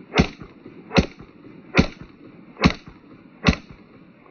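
Five 9mm pistol shots from a Glock 19X fired at a steady pace, a little under a second apart, each a sharp crack with a short echo.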